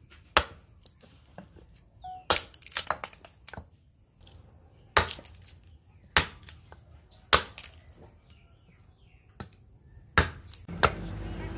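Sharp, separate chops of a hand blade into rosewood, about eight strikes at uneven intervals of one to two seconds, as the gourd shape is hewn out of the block. A low steady hum comes in near the end.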